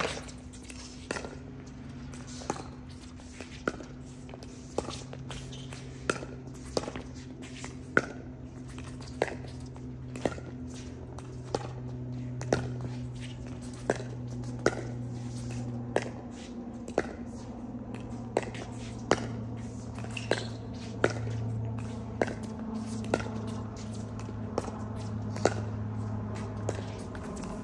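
Pickleball paddles hitting a plastic pickleball in a long rally: sharp clicks about once a second, over a steady low hum.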